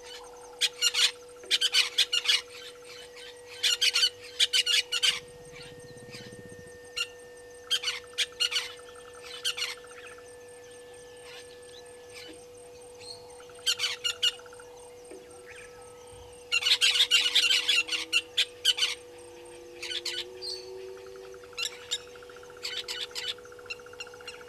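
Bursts of high-pitched chirping and squawking calls, coming in short clusters every second or few, loudest and densest about two-thirds of the way through. A steady faint hum runs underneath.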